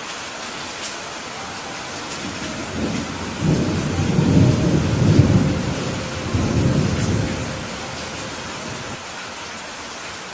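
Steady heavy rain hissing, with a low roll of thunder swelling in about two seconds in, peaking around halfway and fading out near the end.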